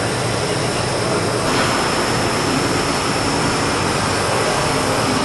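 Vertical form-fill-seal bagging machine running, a steady mechanical noise. About a second and a half in it turns brighter, with a thin high whine added.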